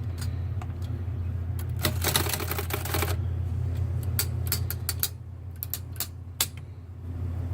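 1930s Remington Rand Model 1 manual typewriter being worked by hand: separate mechanical clacks and clicks, with a quick run of rattling clicks lasting about a second near the middle.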